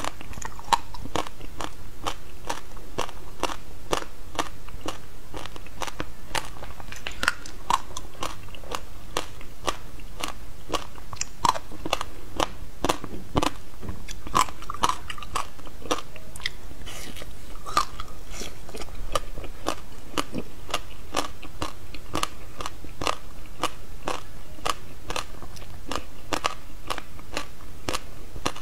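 Close-miked biting and chewing of a frozen slab of passion fruit pulp and seeds: a dense, even run of sharp crunches, several a second, as the ice cracks between the teeth.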